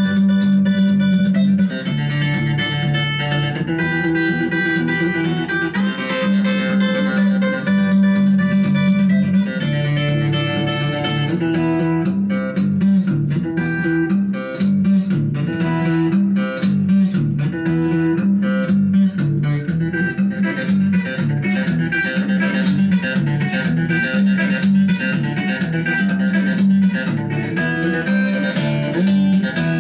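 Instrumental guitar music: a guitar playing plucked melody notes over a low pulsing bass line, which turns into a busier stretch of fast, rapidly picked notes about twelve seconds in.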